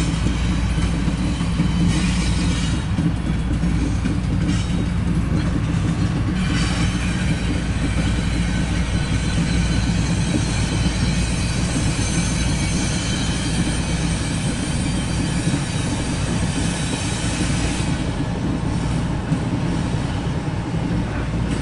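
Double-stack container cars of a CSX intermodal freight train rolling past: a steady heavy rumble of wheels on rail. From about six seconds in until near the end, a thin high wheel squeal rides over the rumble.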